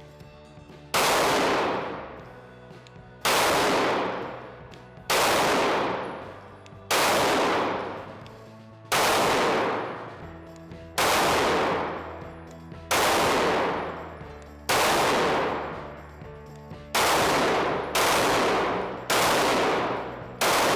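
Sig P320 compact pistol firing about a dozen single shots, slow and evenly spaced at first, then a little quicker near the end. Each shot rings on with a short echo.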